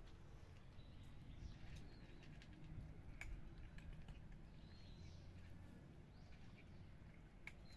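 Near silence with faint, high bird chirps now and then and a couple of soft clicks.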